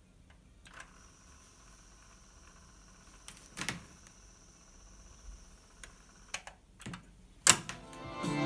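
Tandberg TCD 330 cassette deck's transport keys being pressed, a series of short mechanical clicks scattered over several seconds, the sharpest one near the end, over a faint steady high whine.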